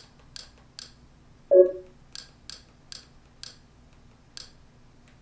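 Short, sharp clicks while scrolling through a Kodi menu, two or three a second with a short pause, and one brief, louder tone about one and a half seconds in.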